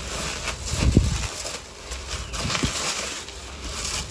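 Clear plastic bag and bubble wrap rustling and crinkling as packing material is pulled out of a parcel, with a dull bump about a second in.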